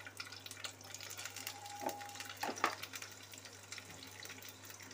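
Boiled eggs frying in hot oil in a wok, a faint sizzle with scattered crackles and spits. A couple of sharper knocks come about two and a half seconds in.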